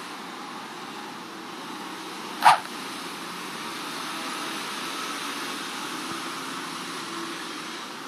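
One short, loud animal call about two and a half seconds in, over a steady background hum.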